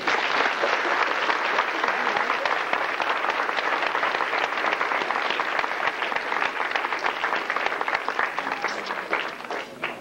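Audience applauding, with hands clapping close by. The applause starts abruptly, holds steady and dies away just before the end.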